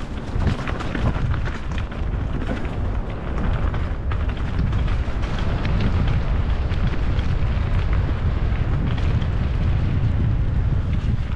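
Mountain bike rolling fast along a trail covered in dry fallen leaves: the tyres crackle and crunch through the leaves in many quick ticks, over a steady low rumble of wind buffeting the helmet camera's microphone.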